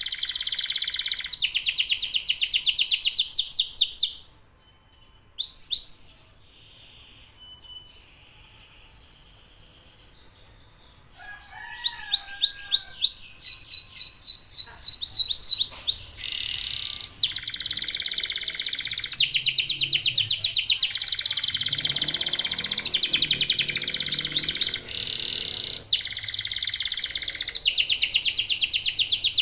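Domestic canaries singing in fast, high trills of rapidly repeated notes, thinning to scattered single notes for a few seconds after about four seconds in, then trilling steadily again.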